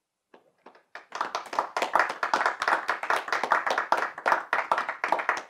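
Applause: a few scattered claps, then dense steady clapping from about a second in.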